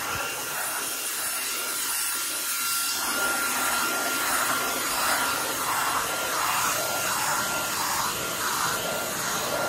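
Halostar cordless stick vacuum in handheld mode running with a steady motor whine, its brush attachment pushed back and forth over stair carpet. From about four seconds in, the sound swells and fades with each stroke.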